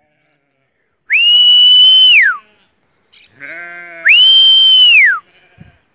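A person whistling to call a flock of sheep: two long whistles, each gliding up, holding one pitch and falling away, about three seconds apart. A short sheep bleat comes between them.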